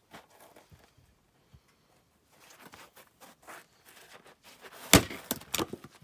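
A splitting axe strikes a log round once, a sharp crack about five seconds in, followed by a few lighter knocks as the split wood falls. Before the strike there is shuffling of feet and light handling sounds.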